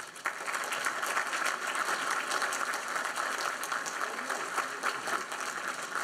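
Audience applauding, many hands clapping together at a steady level that eases off slightly near the end.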